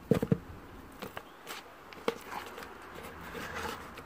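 Hands handling whole raw fish in a basin: a few scattered wet slaps and taps, loudest in the first half-second, then a soft rubbing rustle a little after three seconds in as seasoning is worked into the fish.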